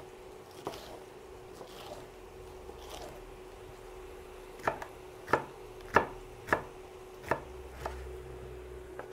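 Santoku kitchen knife chopping a green Italian pepper on a wooden cutting board: a few light taps, then a run of about six sharp knocks a little over half a second apart in the second half.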